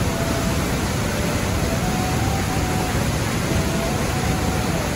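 Steady rush of a waterfall and the fast, shallow mountain stream below it, an even wash of water noise.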